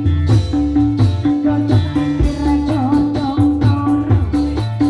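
Upbeat Indonesian dance music for a Reog street performance, with a steady drum beat, a bouncing bass line and a repeating melody.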